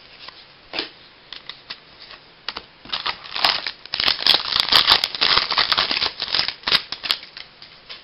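Baseball trading cards and their packaging being handled, a dense run of crackling and rapid small clicks from about three to seven seconds in.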